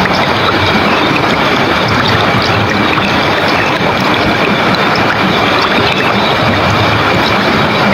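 River water rushing swiftly, a loud, steady, even wash of flowing water, with a faint steady high tone running over it.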